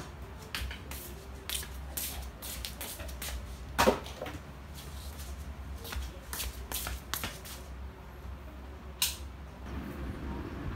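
Soft slippers scuffing and stepping on a concrete floor, among short clicks and knocks, the loudest a knock about four seconds in, over a low steady hum.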